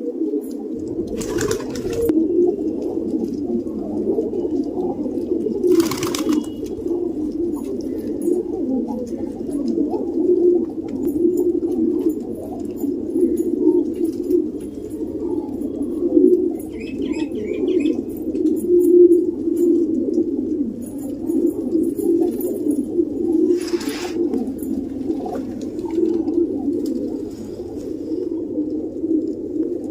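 Domestic pigeons cooing continuously, several voices overlapping in a steady low murmur. Three brief sharp noises break in, and a short run of high chirps comes a little past the middle.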